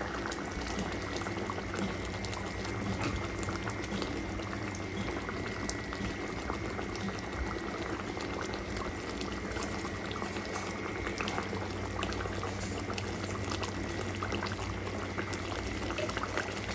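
Chital fish curry gravy boiling in an open wok: a steady bubbling with many small pops.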